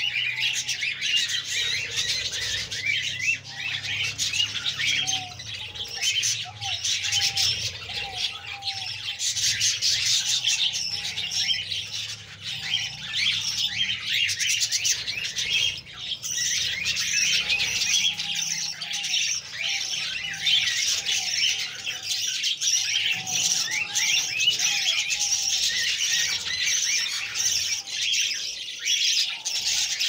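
A flock of budgerigars chattering together: a steady, dense stream of quick, high chirps and warbles, many birds calling over one another.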